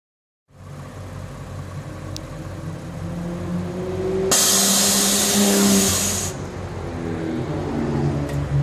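Air Lift air suspension on a Lexus RC350 venting air from its bags as the car lowers. A loud hiss starts about four seconds in and lasts about two seconds, over a steady low hum.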